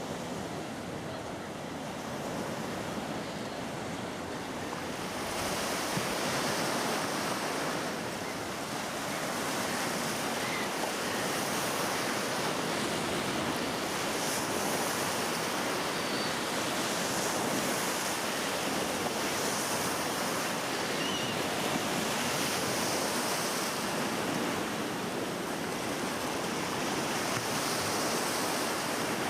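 Sea surf: waves breaking and washing onto the shore in a continuous rush, growing louder about five seconds in.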